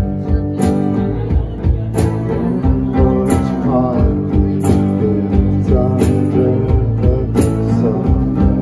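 Live rock band playing: distorted electric guitars and bass holding sustained chords over a steady drum beat, with a loud crash-and-snare hit about every second and a third.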